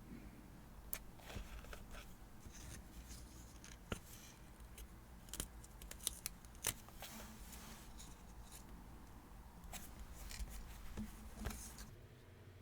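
Scissors snipping paper, with rustling and small clicks of paper and stationery being handled; the handling stops near the end.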